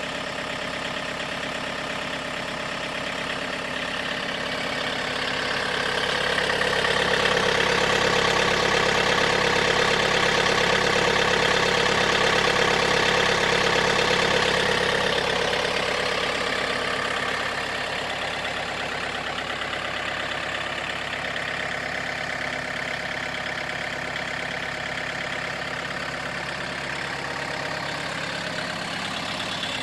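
Yanmar EF342 tractor's diesel engine idling steadily, louder for about ten seconds in the middle.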